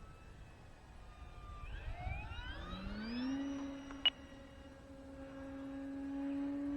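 Electric RC plane's brushless motor and 12x6 propeller whining. The pitch climbs about two to three seconds in as the throttle opens, then holds steady. A single sharp click comes about four seconds in.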